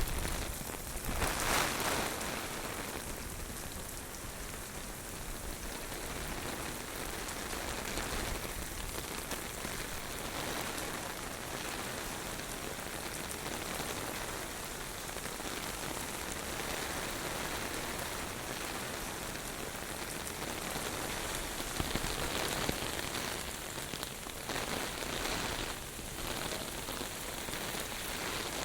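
Heavy typhoon rain pouring down on hard surfaces with strong wind, a steady hiss that swells louder a second or two in and again near the end.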